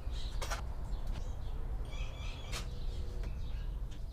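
Faint bird chirps over a low steady outdoor rumble, with two brief rustles or scrapes from hands working on a stripped bench-seat frame, about half a second and two and a half seconds in.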